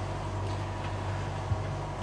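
Steady low mechanical hum of a boat's machinery, with one light knock about one and a half seconds in.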